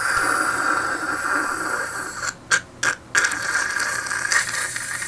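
Beatboxer's prolonged letter-K sound: a raspy scraping friction of the middle of the tongue against the roof of the mouth. It is held for about two seconds, then comes twice in short bursts, then is held again. This is the first building block of a beatboxed Transformers transformation effect.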